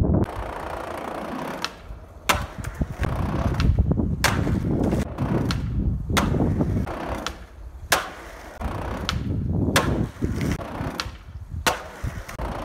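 Skateboard rolling on concrete with hard urethane wheels, a rough steady rumble broken by about a dozen sharp clacks of the board and wheels, among them the tail pop and landing of an ollie down a stair set.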